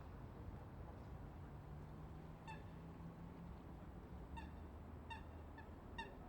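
Faint, steady river flow, with short bird calls five times in the second half: sharp honking notes, the last ones coming close together.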